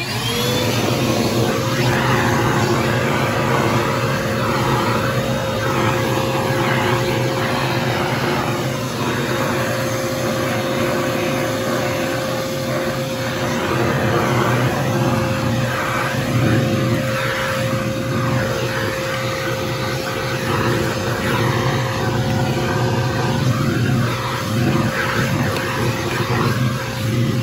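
A 1.5-gallon, 2-horsepower wet/dry shop vac switches on and winds up within about half a second to a loud, steady motor whine. Its airflow rushes and shifts in tone as it vacuums a car's floor mat and the carpet under the seats.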